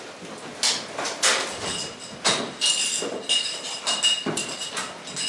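Irregular knocks and clattering from people hurriedly pulling on firefighting trousers, jackets and boots in changing cubicles. Several of the sharper knocks are followed by a brief high ringing tone.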